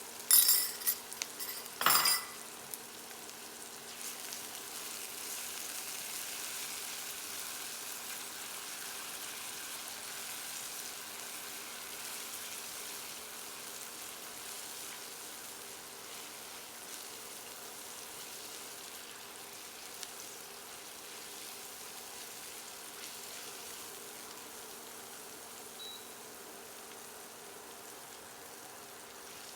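Chopped shallots and garlic sizzling steadily in olive oil in a frying pan, over a steady low hum. In the first couple of seconds a utensil clatters against the pan a few times with a ringing sound.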